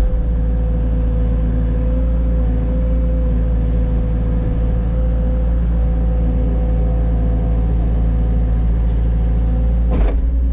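Cat mini excavator's diesel engine running steadily, with a steady whine held over the low rumble as it digs out a hump in a gravel driveway.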